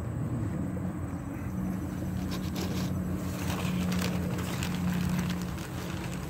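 A motor vehicle's engine humming steadily, growing louder through the middle and easing off near the end. Crackly rustling comes in around the middle.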